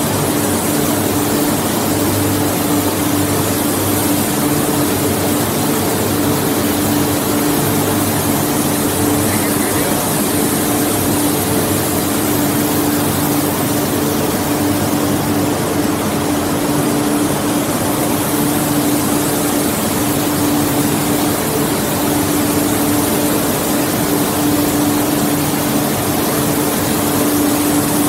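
Ring rolling machine running steadily as it rolls a red-hot forged ring: a constant loud mechanical drone with a steady hum over dense hiss.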